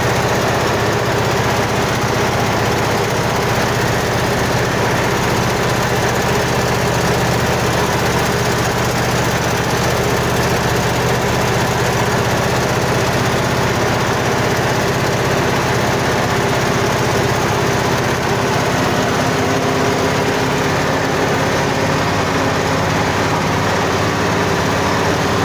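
A truck's engine running steadily as the truck drives along, heard from the cab's open window with road noise over a constant low hum.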